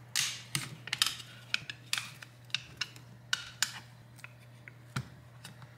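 Thin pry tool working under the glued screen glass of an iPad Air 2: a string of short, irregular scrapes and clicks as it is levered along the edge to break the adhesive.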